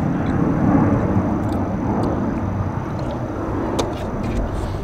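A steady low rumble of outdoor background noise that slowly fades, with a couple of faint clicks.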